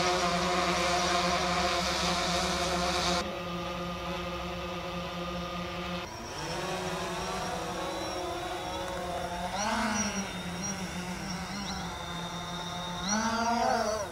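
DJI Phantom 4 Pro quadcopter's four rotors buzzing in flight, a steady hum of several tones. Its pitch wavers and briefly rises about ten seconds in and again near the end as the motors speed up.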